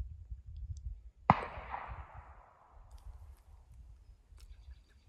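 A single sharp, loud bang about a second in, followed by a long echoing tail that fades away over about a second and a half, over a low rumble.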